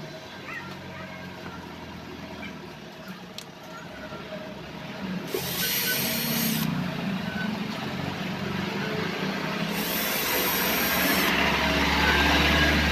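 Cordless drill boring into a small wooden block, running in two bursts, about five and ten seconds in. A few light clicks of parts being handled come before.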